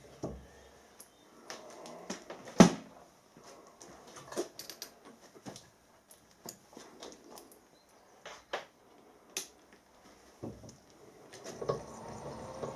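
Workshop handling noises: scattered metal clicks and knocks of tools and parts being moved, with one sharp knock about two and a half seconds in. A machine's steady hum comes on near the end.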